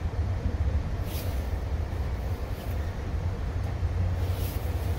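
Steady low rumble of an Amtrak Superliner lounge car rolling along the track, heard from inside the car, with two brief hisses about a second in and again near the end.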